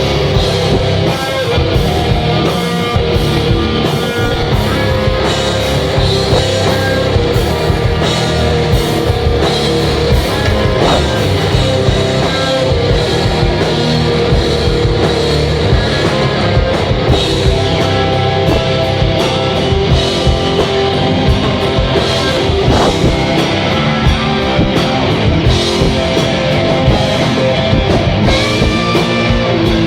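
Rock band playing live: guitars over bass and a drum kit keeping a steady beat.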